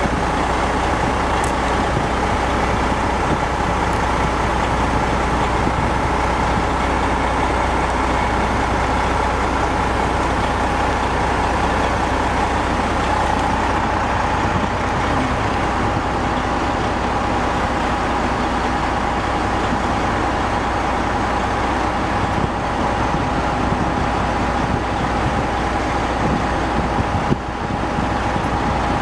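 Heavy diesel engines running steadily, a deep hum with a steady whine above it, while a container handler lifts a shipping container onto a military truck.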